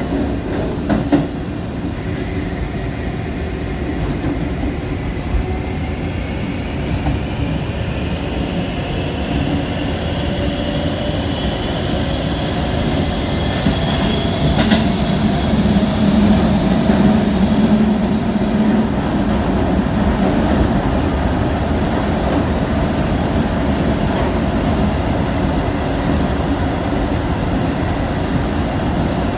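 Shibayama Railway 3500-series electric train running through a tunnel: a dense rumble of wheels on rail, with a thin whine that rises steadily in pitch over the first fifteen seconds as the train gathers speed, and a few sharp clicks from the track.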